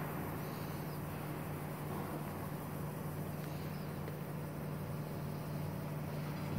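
Steady low mechanical hum of running factory machinery, with an even noise over it and no distinct strokes.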